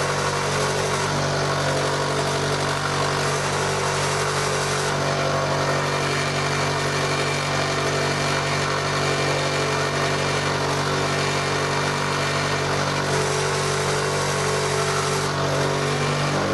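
Warco WM16B milling machine running steadily at about 715 rpm, its loose top cover rattling and vibrating on the head.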